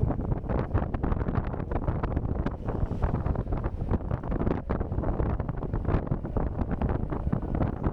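Hard wind buffeting the microphone: a dense low rumble with rapid, uneven gusts and no clear motor tone.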